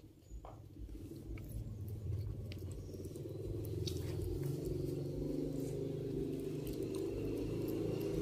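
A domestic cat purring close to the microphone: a low, steady rumble that grows louder about three seconds in, with a few faint clicks over it.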